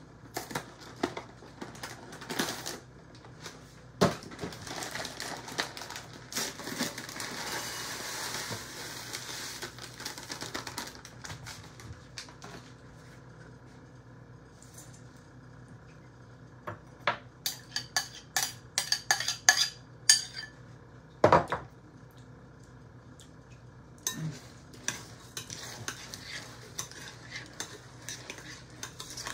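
Spoon and dishes clinking against a glass mixing bowl as food is added and mixed: a few seconds of rustling as dry crumbs go in, then a quick run of taps and scrapes, one loud knock, and stirring with light clinks near the end.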